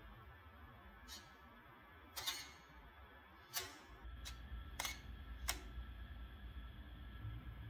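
Digital SLR camera shutter firing about six single shots, half a second to a second and a half apart. A low steady hum comes in about halfway through.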